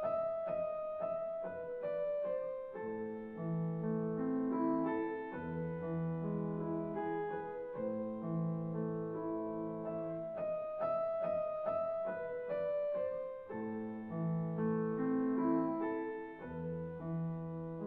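Solo piano music: a phrase of repeated high notes followed by lower sustained chords, which comes round again about twelve seconds later.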